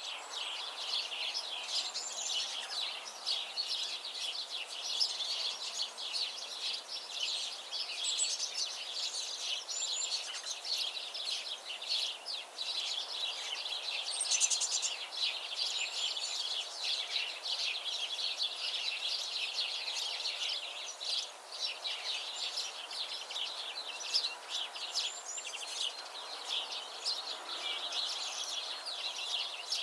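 A chorus of many small birds chirping and trilling, with short calls overlapping continuously over a soft background hiss.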